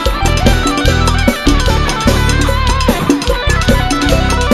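Live cumbia band playing: an electric guitar carries a wavering lead melody over drum kit, percussion and bass.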